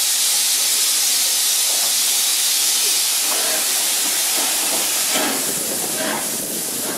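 Steam locomotive hissing steam loudly and steadily as the train moves off slowly, with two louder puffs near the end.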